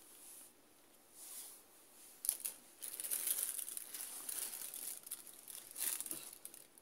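Thin plastic bag crinkling and rustling in irregular bursts as a hand pulls it open, with sharp crackles about two seconds in.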